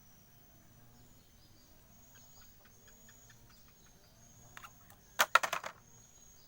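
Faint bird chirps in the background, then a short loud burst of several rapid pulses about five seconds in.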